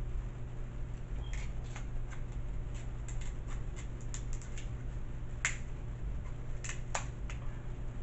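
Kitchen shears snipping through crab leg shells: a run of sharp, irregular clicks and cracks, the loudest about five and a half and seven seconds in, over a steady low hum.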